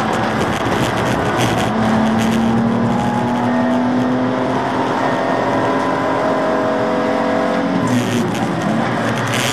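BMW Z4 Coupe (E86) race car's straight-six engine at racing speed, heard from inside the cabin over road and wind noise. The engine note steps up about two seconds in, holds steady for several seconds, then breaks near the end.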